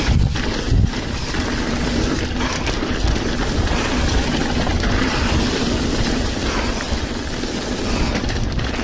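Mountain bike riding down a rough trail: a steady rush of tyre noise and bike rattle, with wind across the microphone.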